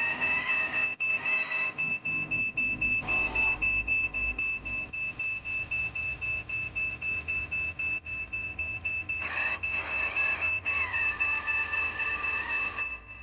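Electric motors and gearboxes of a radio-controlled construction model whining: a steady high-pitched whine throughout, with several bursts of grinding gear noise as the model's functions run and stop, the pitch of the whine gliding as they speed up and slow down.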